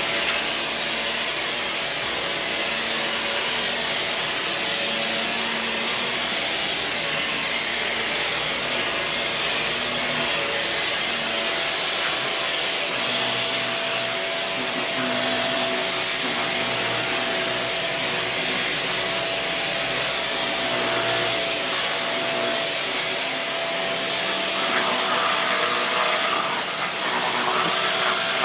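Shark Rocket stick vacuum running with its motorized power head on, a steady motor whine with air rush while it is pushed over rugs and floor, the lower hum shifting in pitch as it moves.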